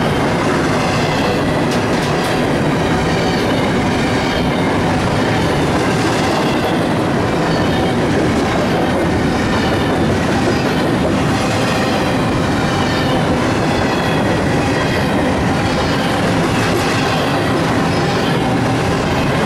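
Empty double-stack intermodal well cars of a freight train rolling past close by: a loud, steady rumble of steel wheels on the rails, with a rhythmic clickety-clack as the wheels cross rail joints.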